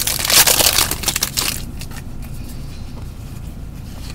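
Trading cards and their packaging being handled by gloved hands: a loud crinkling rustle for about the first second and a half, then quieter shuffling and handling noise.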